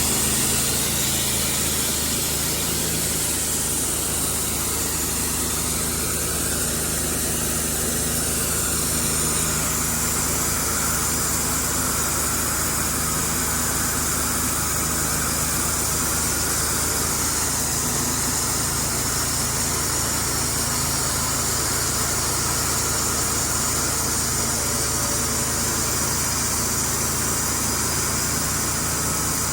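Sawmill running steadily, its engine under constant load as the saw works through a poplar log.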